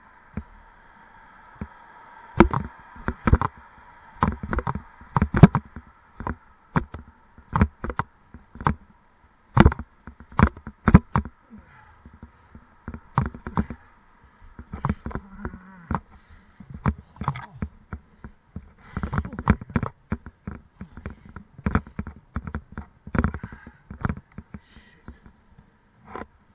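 Irregular sharp knocks and rattles close to the microphone, dozens of them, over a faint steady buzz that fades after the first few seconds.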